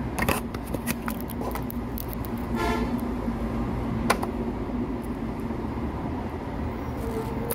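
Steady hum of road traffic with a short vehicle horn toot a little under three seconds in, and a few sharp clicks of small parts being handled.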